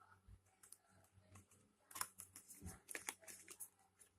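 Faint paper rustling and crinkling as a small packet of phone leaflets is opened by hand, with a quick run of sharp crackles and clicks about halfway through.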